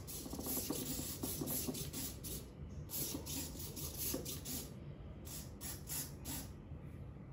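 Small servo motors of an Arduino laser turret whirring in many short, irregular bursts as a joystick steers the laser, falling still about six and a half seconds in.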